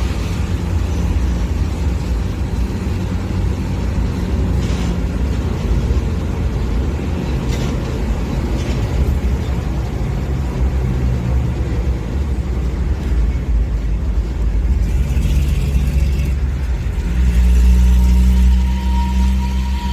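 Diesel locomotive engine running with a deep, rumbling exhaust that the title calls 'snoring', growing louder near the end.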